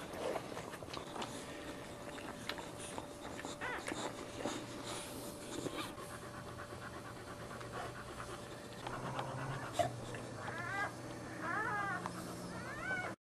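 Boxer bitch panting heavily during whelping, with wet licking sounds as she cleans her newborn puppy. Near the end come a few short, high squeaks from the newborn puppies.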